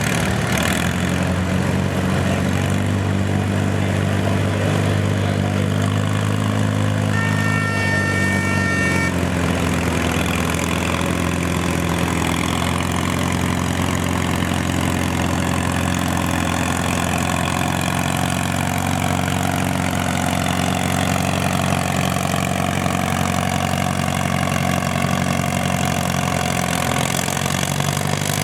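Farm tractor engine running steadily at an even speed, with a slight dip in pitch partway through. A short high-pitched tone sounds for about two seconds a quarter of the way in.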